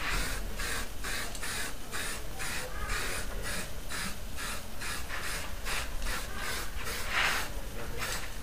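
An Oxygen aerosol spray-paint can being shaken in quick, even strokes, about three a second, so the mixing ball and paint rattle and slosh inside it before spraying.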